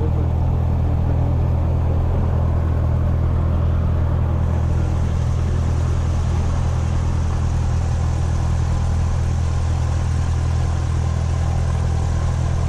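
Cessna 172 SP's four-cylinder Lycoming IO-360 engine and propeller running steadily, heard from inside the cabin. A faint hiss joins about four seconds in.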